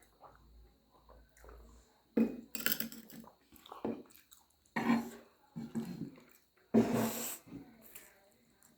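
Close-up eating noises from people eating chow mein: chewing, with several loud, noisy mouth sounds about two, five and seven seconds in.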